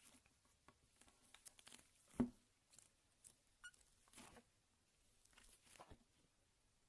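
Slime being squeezed and stretched by hand: faint sticky crackles and clicks, with one louder pop about two seconds in.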